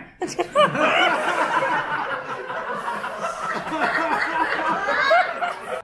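Live audience laughing together, many voices at once, cut off suddenly near the end.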